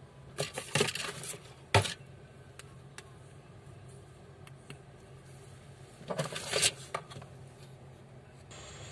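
Light clicks and clatter of a Vivo V21 smartphone being handled and turned over in the hand, in two bursts about five seconds apart, the sharpest click just under two seconds in.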